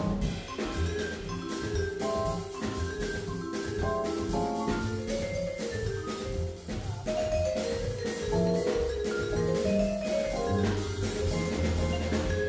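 Live small-group jazz with the vibraphone to the fore, its mallet notes ringing over Fender Rhodes, walking upright bass and drum kit with cymbals.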